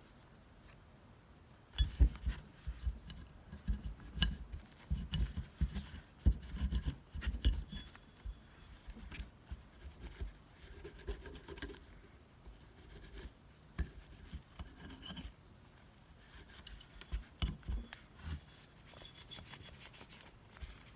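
Cotton tissue paper rubbing and scrubbing oiled, dirty parts of a field-stripped Glock pistol, in irregular strokes with light knocks of the metal and polymer parts being handled, starting about two seconds in.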